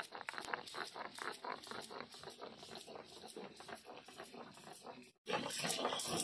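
Dry masala being ground by hand with stone: quick, evenly repeated grinding strokes. About five seconds in they break off, and a louder, noisier sound follows.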